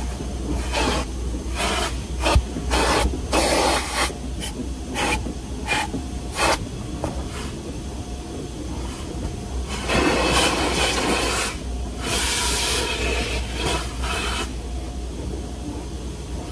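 Automatic car wash heard from inside the car: a run of short hissing sweeps of spray and scrubbing against the car body, then two longer washes about ten and twelve seconds in, over a steady low hum.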